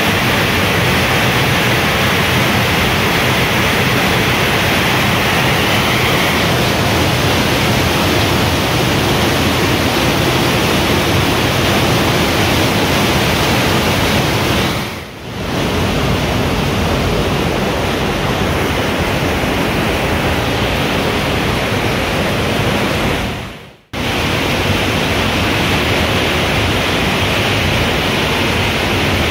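Cave floodwater rushing loudly through a narrow rock passage as a steady white-water torrent. The sound dips briefly about halfway through and cuts out for an instant near the end.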